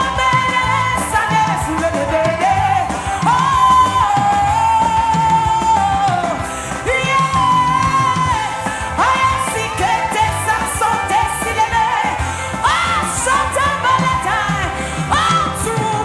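Live worship band music with a lead voice singing long, held notes that slide up and down over the accompaniment.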